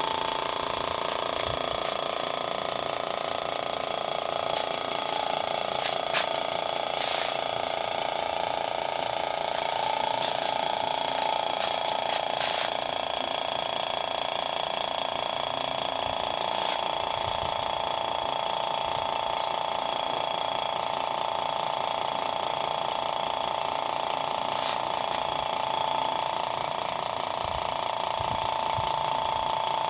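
A/C vacuum pump running steadily, a steady motor whine with several even tones, while the car's A/C system is being evacuated. A few light clicks of hoses and fittings being handled sound now and then.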